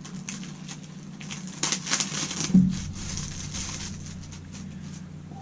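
Packaging rustling and crackling as a boxed item is unwrapped, with a brief cluster of crackles and one soft knock midway, over a steady low hum.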